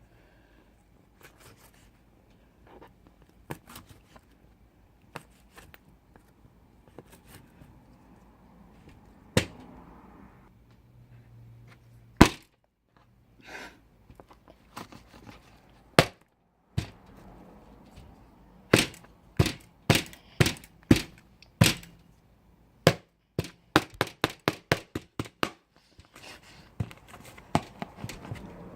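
Slime being squeezed and poked by hand, giving sharp pops and clicks, scattered at first and then in a quick run of about five a second near the end.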